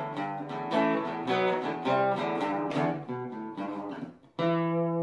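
Outro music on strummed acoustic guitar: a run of chords, a brief pause just past four seconds, then a final chord struck that rings on.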